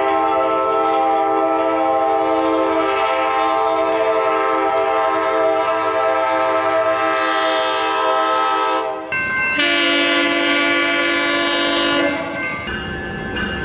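Coaster commuter train locomotive horn sounding a long chord of several notes for about nine seconds. It cuts off abruptly, and a second, shorter horn blast of about two and a half seconds follows.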